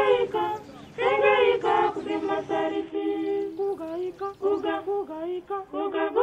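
A group of high voices singing unaccompanied, in short phrases with brief breaks between them.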